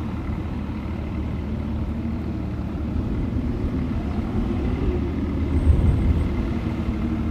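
A vehicle engine running steadily, a low rumble throughout.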